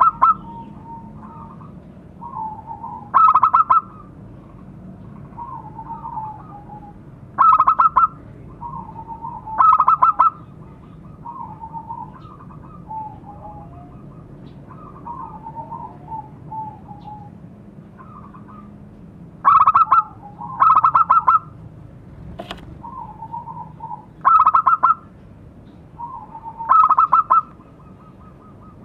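Zebra dove (perkutut) singing its cooing song: loud, rapidly rolling trilled notes every few seconds, with softer, lower coos in between. One sharp click about three-quarters of the way through.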